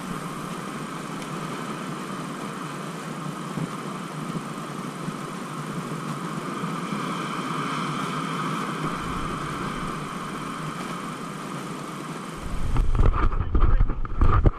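A steady rushing outdoor background noise. About twelve seconds in it gives way to louder wind buffeting the microphone, with waves breaking against the rocks.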